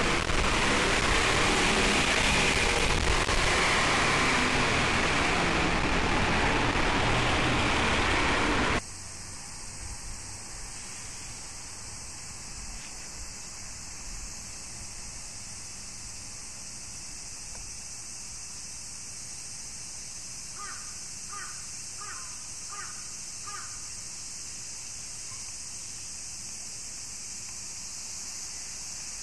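Loud, steady rushing noise of a moving vehicle that cuts off suddenly about nine seconds in. A crow then caws five times in quick succession against a faint steady hiss.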